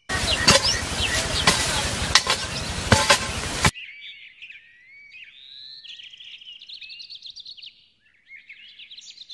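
A hoe chopping into soil, four heavy strokes about a second apart over a loud rushing noise, which cuts off suddenly a few seconds in; after that, birds chirping steadily.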